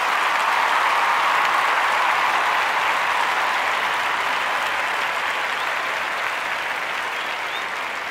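Applause, many hands clapping in a dense, steady patter that slowly fades toward the end.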